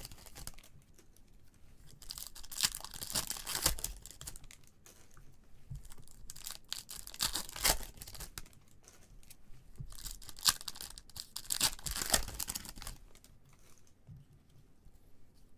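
A foil trading card pack wrapper being torn open and crinkled by hand. It comes in three spells of tearing and crackling, with quieter rustling between them.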